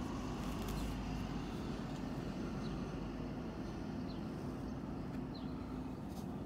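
Steady city street traffic noise, a low even rumble with a faint steady hum through it.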